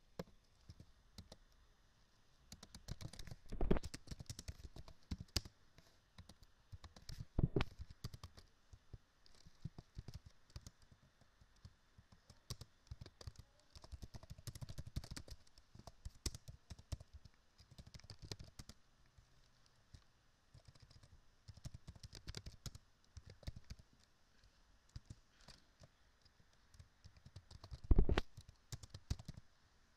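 Computer keyboard typing in irregular bursts of key clicks, with a few louder knocks, about 4, 7 and 28 seconds in.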